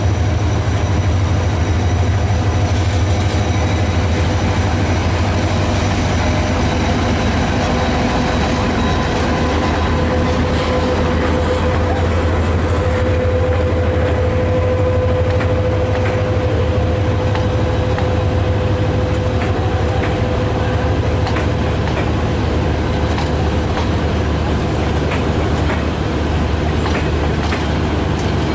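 Diesel-hauled passenger train passing: the locomotive goes by with a steady low hum, then the coaches roll past with wheels clicking over the rail joints. A steady tone rises and fades in the middle of the passing.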